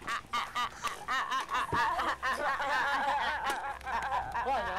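Several teenage boys laughing hard together, in quick rising-and-falling peals. A steady low hum comes in about two seconds in.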